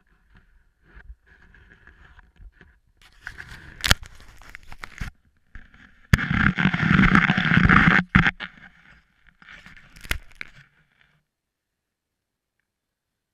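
Scraping and rustling right at an action camera on a pole, loudest in a two-second stretch about six seconds in, with a few sharp clicks, then falling almost silent.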